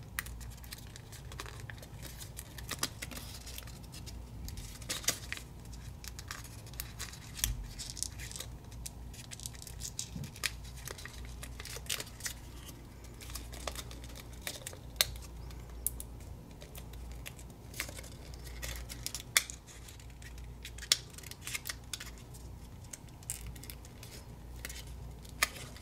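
Origami paper being creased, tucked and handled close to the microphone: scattered small crinkles, crackles and taps of paper under the fingers over a low steady hum.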